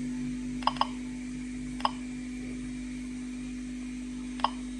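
Geiger-counter dosimeter clicking sparsely, four short beeps at irregular intervals (two close together about a second in, one near 2 s, one near the end), counting natural background radiation, over a steady low hum.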